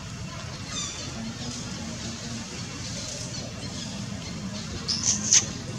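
Newborn macaque infant giving a faint high squeak about a second in, then a few short, loud, shrill squeals near the end.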